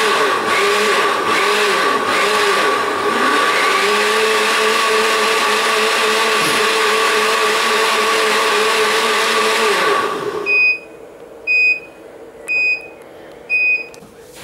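Krups countertop blender running at high speed with its jar full of liquid, a steady whirring motor note, then shutting off about ten seconds in. Four short, high beeps about a second apart follow, from the blender's panel.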